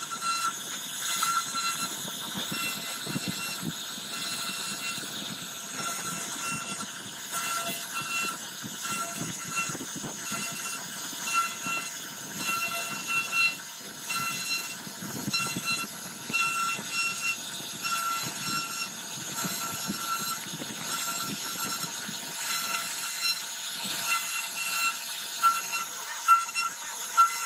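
CNC router spindle running with a bit cutting into a wooden board: a high steady whine that wavers as the bit bites, over a rough, uneven cutting noise.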